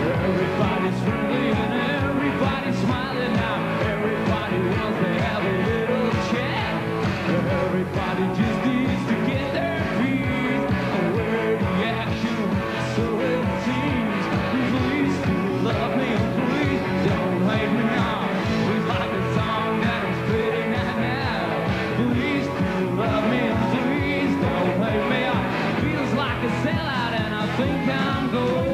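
Rock band playing live, a full band with drums keeping a steady beat.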